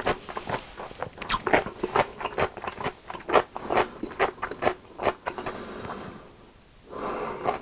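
Close-miked mouth sounds of someone chewing a mouthful of creamy carbonara spaghetti: rapid wet smacking clicks that die away about six seconds in, followed by a brief softer noise near the end.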